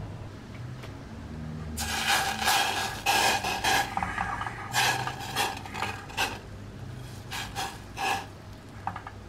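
Wooden spatula scraping and stirring around a stainless steel saucepan of hot sugar syrup for caramel. The strokes come in a run of about four seconds starting two seconds in, then a few shorter scrapes near the end.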